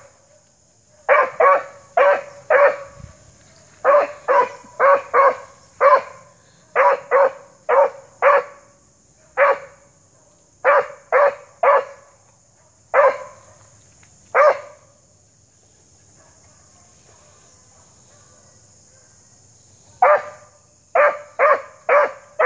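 A dog barking in quick runs of short, evenly pitched barks. The barking stops for several seconds, then starts again near the end.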